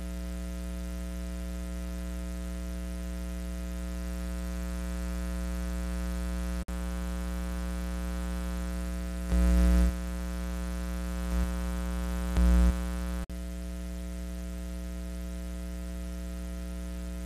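Steady electrical hum and buzz in the audio feed, with two short louder swells after the middle and two brief dropouts.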